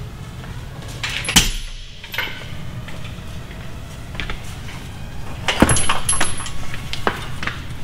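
Metallic clinks and knocks from tools and hoist chain on an Audi R8 transmission as it is worked loose for removal: one sharp knock about a second and a half in, and a quick run of clinks around five and a half to six seconds, over a steady low hum.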